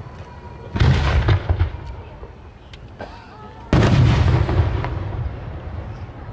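Aerial firework shells bursting overhead: two loud booms, about a second in and again near four seconds, each followed by an echoing rumble that dies away.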